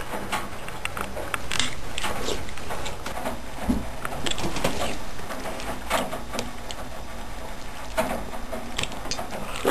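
Metal fork clinking and scraping irregularly against a ceramic bowl while noodle soup is eaten.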